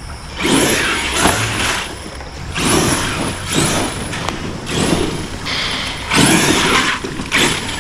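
Arrma Outcast 8S electric RC stunt truck driven on a dirt trail in short throttle bursts, its tyres spinning in the dirt, about one burst a second.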